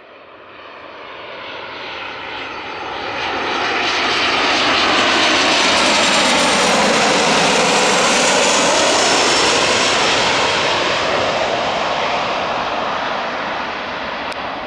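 Boeing 737-800 jet engines on final approach as the airliner flies low past. The sound swells to a loud whoosh, with a sweeping rise and fall in pitch as it passes, then slowly fades as the plane descends toward the runway.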